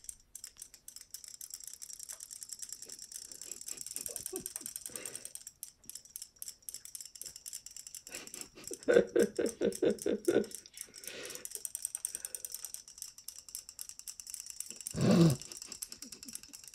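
Fast, steady mechanical ticking and whirring from several battery-powered robot fish toys swimming in a water-filled sink. A run of louder, evenly spaced pulses comes about nine seconds in, and one brief louder sound comes near fifteen seconds.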